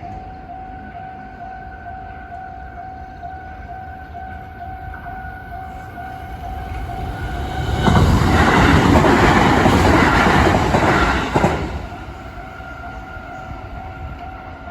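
Japanese level-crossing warning bell dinging steadily in a fast, even repeated rhythm. About eight seconds in, a JR Fukuchiyama Line train passes for about three and a half seconds, loud enough to drown out the bell, which is heard again once the train has gone.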